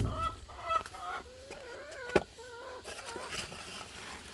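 Chickens making wavering, fussing calls. There is one sharp click about two seconds in.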